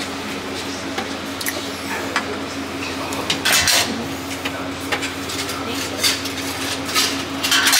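Dishes and metal serving utensils clinking and clattering now and then, over a steady low hum.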